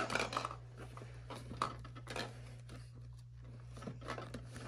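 Handling noise from a large plastic dinosaur toy as its jaw is pried open: scattered small plastic clicks and rustles, a little louder at the start, over a steady low hum.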